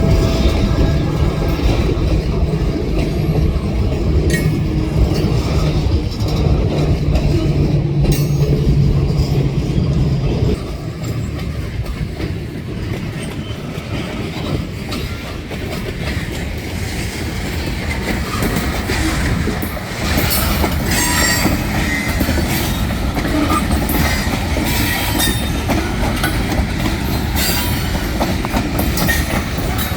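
Train rolling past, with a steady low drone for about the first ten seconds. Then the cars roll by with clickety-clack over the rail joints, and steel wheels squeal on and off in the second half.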